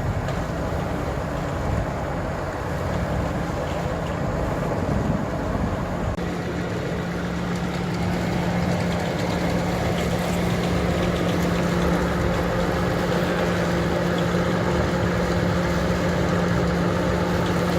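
Engine-driven slurry mixer running steadily, churning a slurry tower. About six seconds in the running settles into a steady hum, and a higher hum joins it near the middle as it gets slightly louder.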